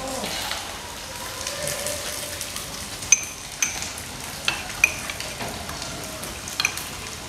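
A metal teaspoon stirring a drink in a ceramic cup, clinking against the cup several times with short bright rings from about three seconds in, over a steady background hiss.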